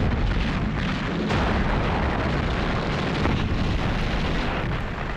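Artillery barrage: heavy guns firing, their booms overlapping into a continuous rumble with sharper blasts standing out.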